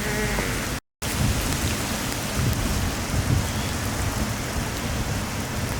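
Steady rain with a low rumble of thunder that swells and fades. The sound drops out completely for a moment just under a second in.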